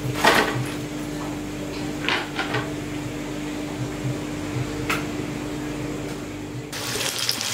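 A few light knocks and clicks of kitchen containers and utensils being handled, over a steady low hum. Near the end this gives way to the crackling sizzle of bajji frying in hot oil.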